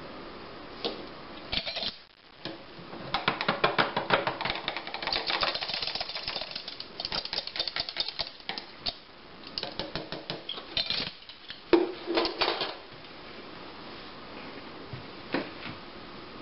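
Rapid clicking and tapping of a thin metal stirrer against the wall of a small plastic cup as detergent is stirred into water. The clicking comes in dense spells over several seconds, with a few single knocks before and after.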